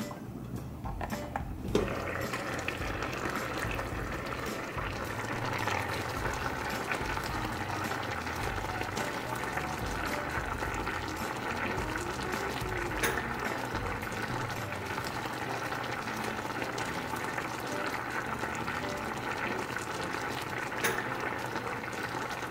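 Mackerel in coconut milk simmering in a stainless steel pan: a steady bubbling and crackling. A brief knock about two seconds in as the glass lid comes off, after which the bubbling is louder and clearer.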